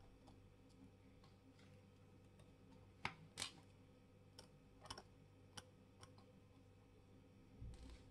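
Faint, irregular light clicks and taps of small tools handling metal watch parts, two sharper ones about three seconds in and a few lighter ones after, over a low room hum.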